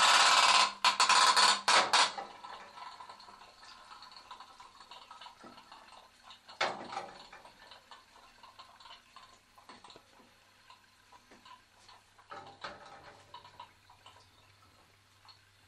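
Pop-pop toy steam boat's engine putting loudly, breaking up and stopping about two seconds in. Faint ticking and small water noises follow, with a knock about seven seconds in and a softer one near twelve seconds.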